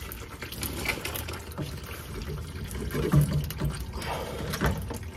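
Hot engine oil running and trickling into a drain pan under a truck, with a few light clicks and knocks.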